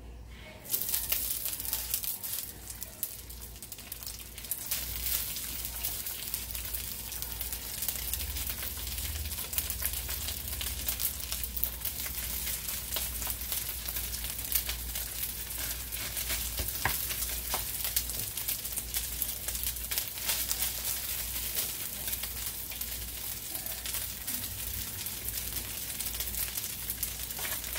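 Cooked, cooled white rice frying in hot olive oil in a large pan: a sizzle and crackle that starts suddenly under a second in as the rice goes in, then stays a steady, dense crackle of many fine pops.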